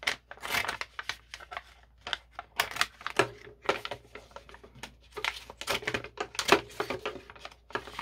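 Scissors snipping through a thick laminated plastic pouch in a rapid, irregular run of crisp cuts, with the plastic crinkling as it is handled.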